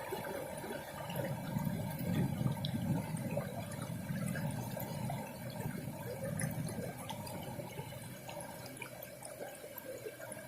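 Running water, a steady rush with scattered small ticks and drips.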